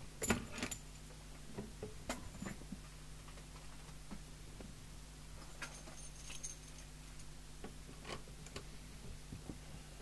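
Small metallic clicks and jingling rattles, in several short clusters and loudest just after the start, from a coax plug and lead being handled as the CB radio's antenna connection is moved from the test gear to the aerial. A low steady hum runs underneath.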